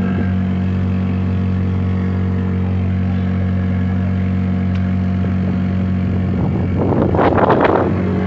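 Motorboat engine running steadily at cruising speed, with a louder rush of wind and water noise swelling for a second or two near the end.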